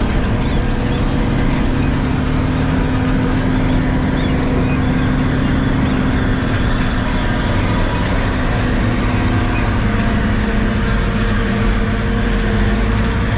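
Self-propelled forage harvester running steadily under load as it chops standing corn, heard from inside the cab.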